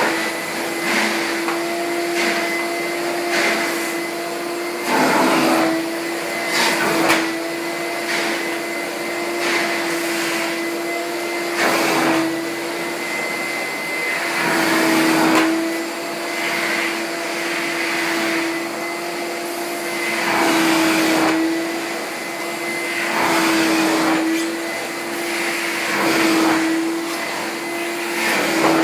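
Miele Electronic S 226 canister vacuum cleaner, a 1000 W model with a built-in sound absorber, running. A steady motor hum and high whine sit under a rush of air that swells and falls every few seconds.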